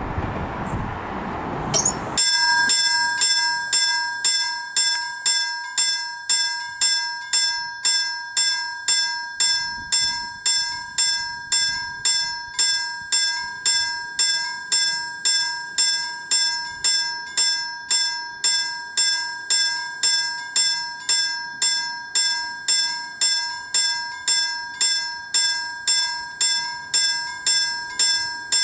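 Level-crossing warning bell ringing with rapid, evenly spaced strikes from about two seconds in, signalling that the crossing is closed for an approaching tram. Before it starts there is a brief rushing noise.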